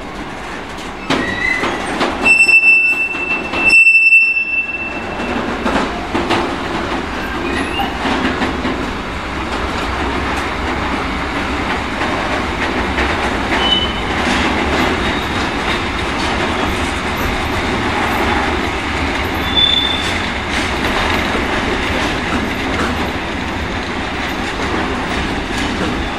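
Long freight train of container wagons rolling past, steady rumble of wheels on rail with rail-joint clicks. About two seconds in, two short, loud, high-pitched tones sound one after the other. Brief faint wheel squeals come later.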